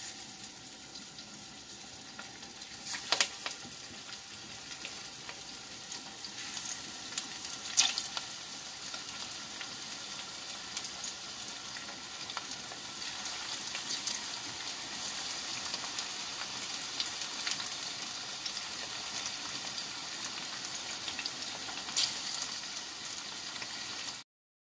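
Battered chicken pakora pieces deep-frying in hot oil, a steady sizzle with a few sharp crackles. The sizzle grows louder as more pieces are lowered in, then cuts off abruptly near the end.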